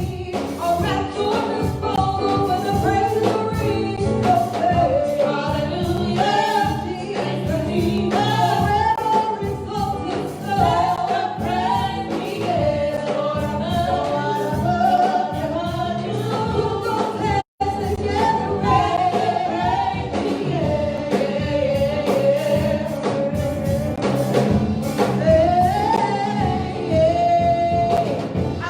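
Gospel music: a choir singing over a steady beat. The sound cuts out for an instant a little past halfway.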